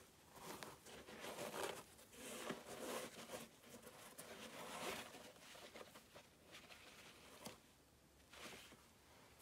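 Faint rustling and scraping of tissue paper as it is pulled out of a new sneaker by gloved hands, along with the shoe being handled, busiest in the first half and quieter after.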